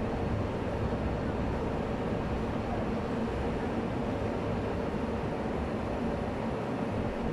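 Steady hum and low rumble of a stationary MTR M-Train electric train standing at the terminus platform, its onboard equipment running with no change throughout.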